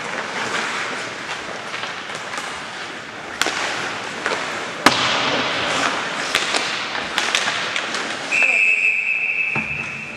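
Ice hockey play around the net: several sharp clacks of sticks and puck over steady rink noise. Near the end comes a single long referee's whistle blast, held for about two seconds, stopping play.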